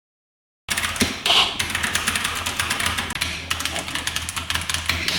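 Fast typing on a ZIFRIEND AG68 gasket-mounted, hot-swap 65% mechanical keyboard: a dense, rapid run of key clacks that starts abruptly under a second in.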